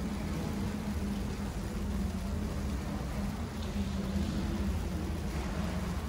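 Steady low rumble of city street traffic, with an engine hum underneath and an even hiss over the top.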